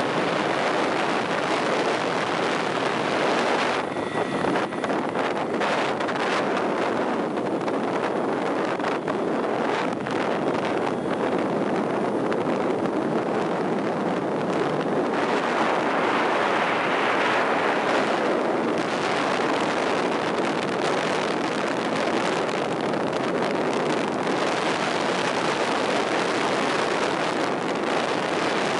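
Steady rushing road and wind noise of a car travelling at speed.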